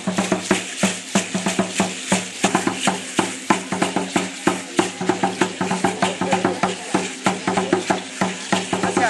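Aztec dance drumming with rattles: a drum beaten in a fast, even rhythm under the steady shaking hiss of rattles.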